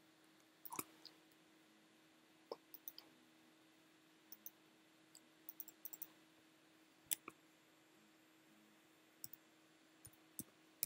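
Sparse computer mouse clicks and keyboard key presses, a dozen or so short clicks scattered irregularly, with a cluster about halfway through. Under them is a faint, steady low hum.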